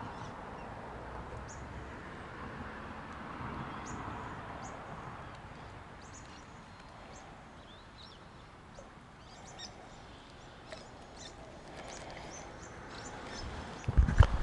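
Small birds chirping now and then over a steady outdoor hiss. Near the end come a few loud, low thumps and knocks.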